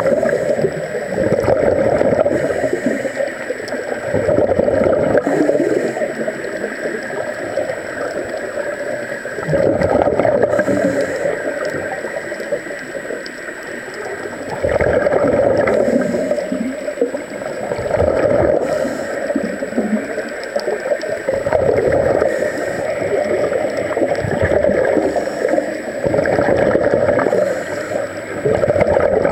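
Underwater gurgling and rushing of scuba regulator exhaust bubbles, swelling in surges every few seconds with each exhalation and fading between breaths.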